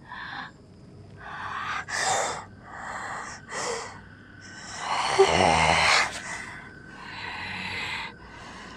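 A woman breathing hard in a series of uneven, noisy gasps, the longest and loudest about five seconds in.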